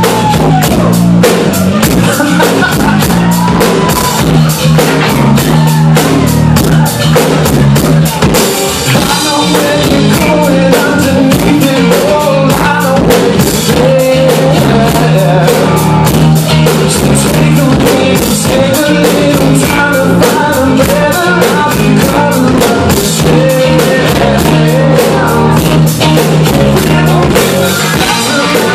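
Live rock band playing loud, with a drum kit keeping a steady beat under electric guitars and bass, and a man singing lead into the microphone.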